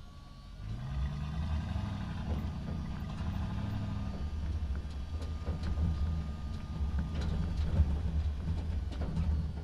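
Truck engine driving through a concrete parking structure. It picks up and rises in pitch about half a second in, then runs steadily, with scattered knocks over it, the sharpest about eight seconds in.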